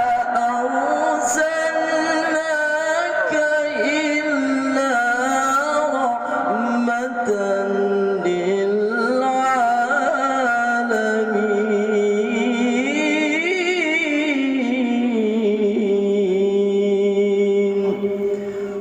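A male qari reciting the Quran in a melodic style, drawing single syllables out into long ornamented notes that glide and waver up and down in pitch, with few breaks.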